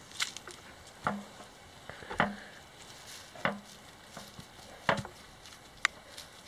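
Walking footsteps with a knock or thud about once a second while a heavy wood-and-metal lumber mill part is carried.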